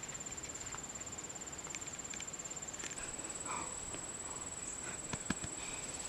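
Insects trilling steadily at a high pitch, with scattered light crunches and clicks: footsteps on dry grass and a cloth bag being handled.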